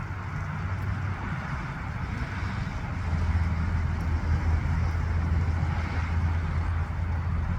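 Low, steady rumble of a rocket launch heard from a distance, growing louder about three seconds in.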